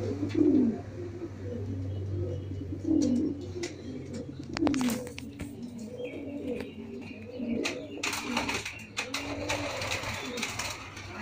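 Domestic pigeons cooing repeatedly in low, rolling calls, with scattered sharp clicks in the second half.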